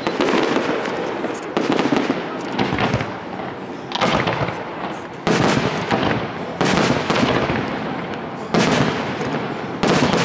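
Aerial firework shells bursting in a rapid sequence: about seven sharp bangs one to two seconds apart, each followed by a trailing rumble.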